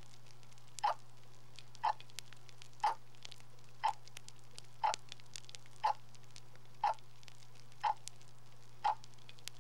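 A steady ticking, one tick a second, over a low hum and faint crackling.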